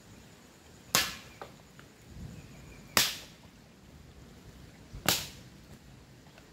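Three sharp cracks about two seconds apart: dry branches being snapped by hand for firewood.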